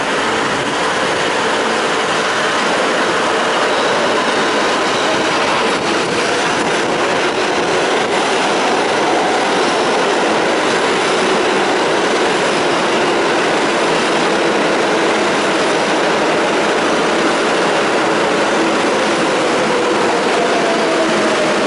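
New York City Subway R188 train pulling into an underground station: a loud, steady rumble of wheels on rail, with a faint falling whine near the end as it slows.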